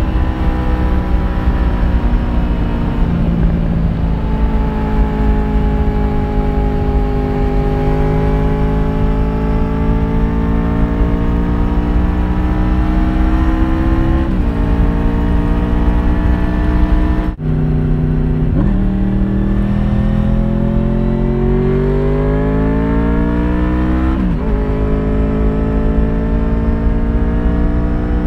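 Honda VFR750 RC36 V4 engine running under load through a modified stock muffler. Its note climbs as it pulls and drops sharply twice at gear changes, near the middle and near the end. The sound cuts out for an instant just after the middle.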